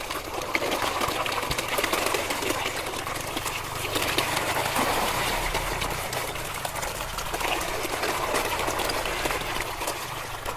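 A dense crowd of koi splashing and churning at the water's surface, jostling for food.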